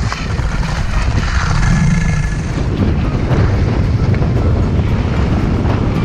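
Wind buffeting the camera microphone during a fast downhill run: a loud, steady rumble.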